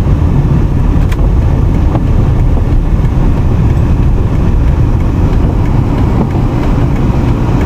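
A car driving, with a steady low rumble of engine and tyres on the road.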